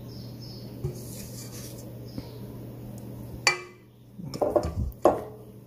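Glass mixing bowl clinking and knocking against the countertop as a hand turns a ball of oiled bread dough in it. A sharp ringing clink about three and a half seconds in, then a few quicker knocks and soft squishes of the dough, over a low steady hum.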